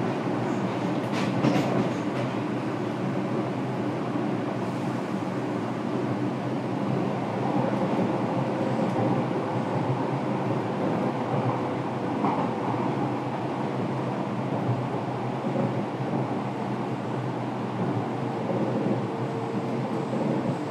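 Fukuoka City Subway 1000N series electric train heard from inside the passenger car while running, a steady rumble of wheels on rail with a few clicks about a second in. A faint steady hum comes in around the middle and again near the end.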